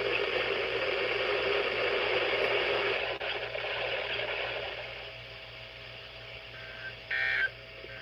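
NOAA Weather Radio received with static hiss that fades out about five seconds in, leaving a low hum. Near the end comes a short burst of buzzy two-tone data, a SAME digital data burst of the kind that opens and closes Emergency Alert System messages.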